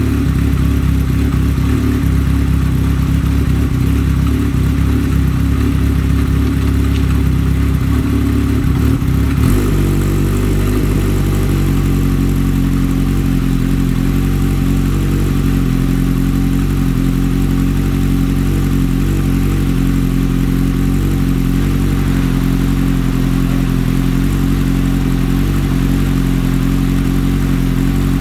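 Kawasaki KZ650's air-cooled inline four-cylinder engine running through a Delkevic 4-into-1 megaphone exhaust as it warms up after a cold start. It runs unevenly at a raised speed, then about ten seconds in the revs drop and it settles into a steady idle.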